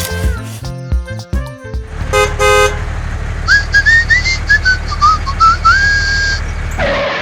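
Background music. About two seconds in it changes to a steady low pulsing bed with a whistled melody gliding over it, and it ends in a swoosh near the end.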